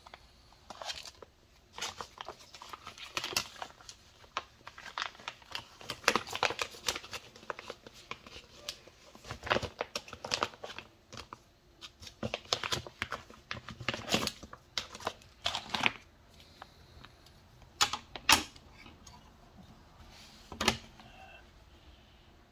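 Irregular bursts of short, sharp scratching and rustling strokes from drawing, some quick and clustered, others spaced a second or two apart.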